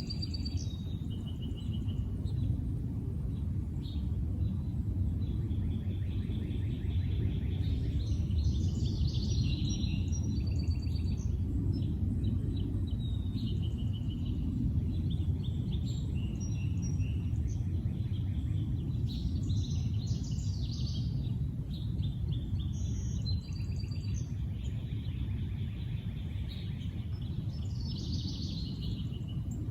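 Several songbirds singing and calling, short chirps and rapid trills coming again and again, over a steady low rumble of background noise.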